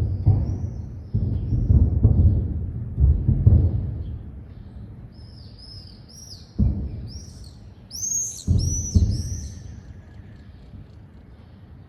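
A series of explosions during a missile attack: about a dozen heavy booms, each a sudden thud that rumbles away. They come thick in the first few seconds, then more spaced out. Small birds chirp over them in the middle.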